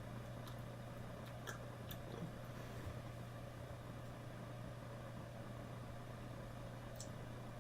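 Low, steady hum with a few faint clicks.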